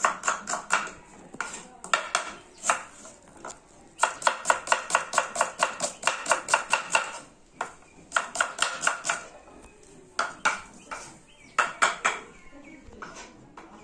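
Knife chopping small onions on a wooden board, in quick runs of about six strokes a second with short pauses between runs.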